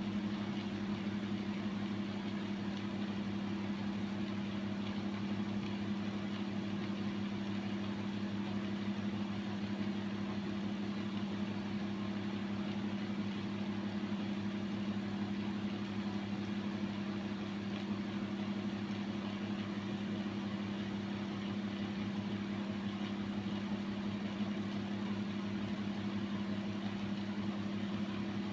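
A steady low hum that holds one pitch and level without change.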